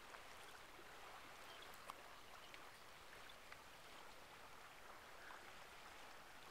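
Near silence, with the faint steady wash of the Yukon River's flowing water.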